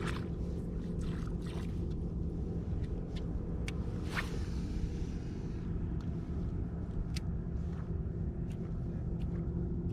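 Motorized fishing kayak's electric motor running steadily: a constant low rumble with a steady hum, with a few sharp clicks and taps scattered through it.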